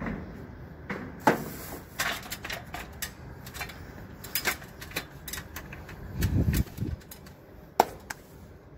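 A string of irregular light clicks and knocks, with a dull low thump about six seconds in, from a person moving about and handling things on a rooftop water-tank platform.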